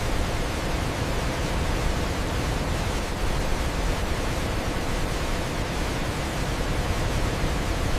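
Steady rushing roar of a waterfall, an even wash of falling water with no breaks or changes.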